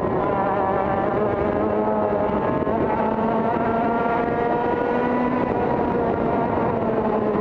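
A TKM kart's 100cc two-stroke engine running hard under throttle, heard from on board the kart. It holds a high, steady buzzing note whose pitch wavers only slightly through the bend and down the straight.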